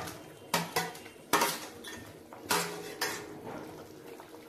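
Metal spatula clinking against a steel plate and steel kadai as fried fish pieces are pushed into simmering curry: about five sharp clinks, irregularly spaced.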